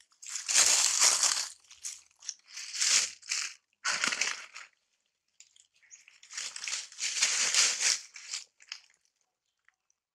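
Dry leaf litter crunching and crackling in several irregular bursts of up to a second or so, with short quiet gaps between.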